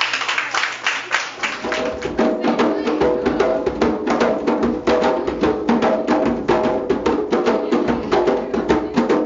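Fast, steady hand drumming, with a melody of held pitched notes coming in over the beat about one and a half seconds in.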